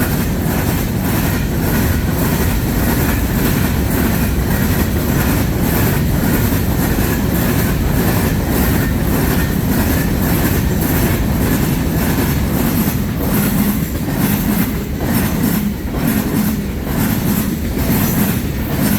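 Freight cars of a passing freight train rolling by close at hand: a steady low rumble and rattle, with wheels clacking over the rail joints again and again.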